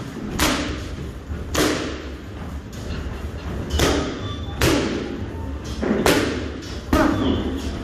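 Boxing gloves smacking into focus mitts: six sharp punches landing, roughly in pairs about a second apart, each with a short echo from the room.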